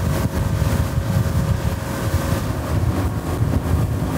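Boat motor running while the boat is under way, with heavy wind rumble on the microphone.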